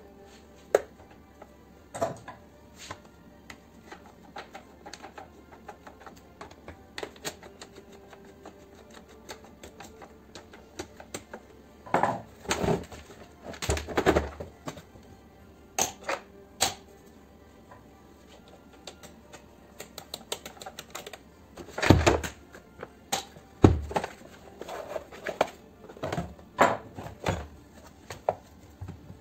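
Clicks, rattles and knocks of hard plastic parts and hand tools as a pressure washer's plastic housing is taken apart. Scattered light clicks, with clusters of louder knocks about halfway through and again about three quarters of the way through as the housing shell is handled.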